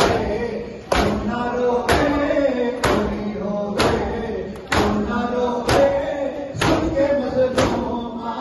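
Matam: a crowd of men beating their chests in unison with their hands, a sharp slap about once a second, while male voices chant a noha between the beats.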